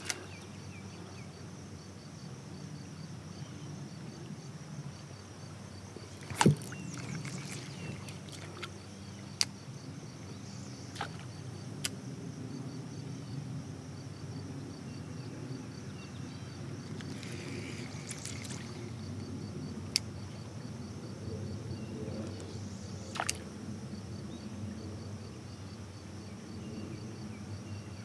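Quiet outdoor ambience from a kayak on a river: a steady low rush, a faint high insect chirp pulsing evenly, and a handful of sharp clicks and knocks. The loudest click comes about six and a half seconds in, and two brief rustling spells fall around eight and eighteen seconds in.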